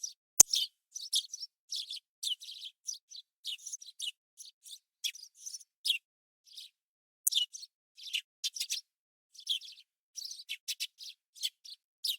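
Small birds chirping: a long run of short, high-pitched chirps in quick irregular bursts over dead silence, with one sharp click about half a second in.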